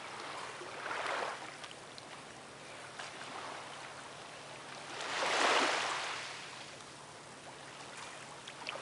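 Calm sea water lapping and sloshing gently. There are two soft swells, a small one about a second in and a louder one about five seconds in, with a faint steady hum underneath.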